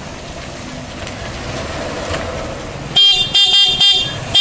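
Steady outdoor background noise, then about three seconds in a vehicle horn sounds a quick run of short beeps.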